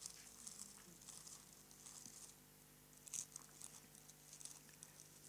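Near silence: faint, irregular rustling and crackling, with one slightly louder click about three seconds in, over a steady faint electrical hum.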